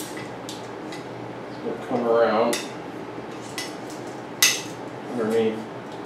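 Light metallic clicks and clinks from handling bicycle cables and components in a work stand, with one sharp clink about four and a half seconds in. Two short pitched sounds come about two seconds in and about five seconds in.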